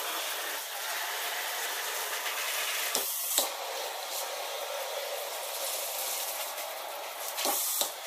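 Kitchen faucet's pull-out spray head spraying water into a dishwasher tub, rinsing the filter: a steady hiss of spray on plastic, broken briefly about three seconds in.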